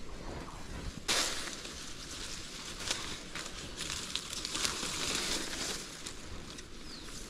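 Rustling and crackling noise with a few sharp clicks, starting suddenly about a second in and easing off after about six seconds.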